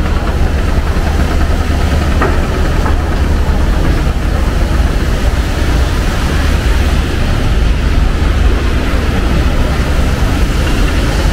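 Steady, loud low rumble of motor vehicles and engines.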